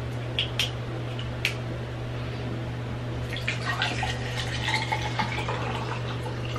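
Bottled water poured from a plastic bottle into a tumbler packed with ice cubes, the splashing starting about halfway through. Before it, a few sharp clicks as the plastic bottle is handled, over a low steady hum.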